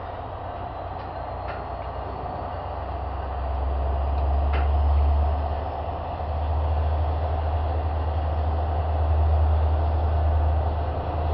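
Diesel-hauled passenger train running, heard from an open coach window: a steady rumble of the train in motion with heavy wind buffeting on the microphone that grows stronger, and two short sharp clicks about a second and a half and four and a half seconds in.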